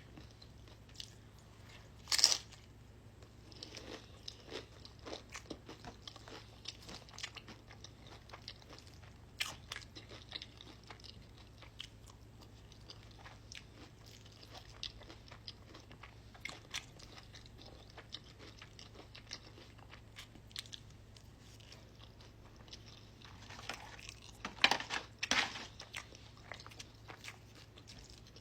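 Close-up eating sounds: chewing with steady small crunches, and loud crunchy bites about two seconds in and again near the end, as Spicy Nacho Doritos chips are bitten and chewed.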